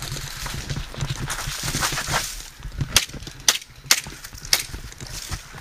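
Rustling movement, then four sharp cracks about half a second apart, typical of airsoft guns firing during a skirmish.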